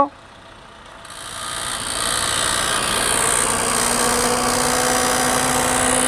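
Maruti Swift petrol engine idling as its AC is switched on: about a second in, a hissing whir rises over a couple of seconds and settles into a steady, continuous mechanical noise from the AC compressor. This is the 'kid-kid' or 'trr' noise that the mechanic puts down to a mechanical fault inside the compressor.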